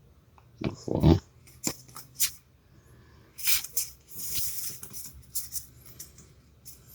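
Crinkly foil booster-pack wrapper being handled and torn open: sharp crackles and short rustling tears, the longest about four seconds in.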